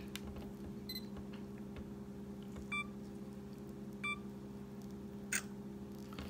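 Four short electronic beeps from a phone camera taking selfie snapshots, spaced a second or more apart, over a steady low hum.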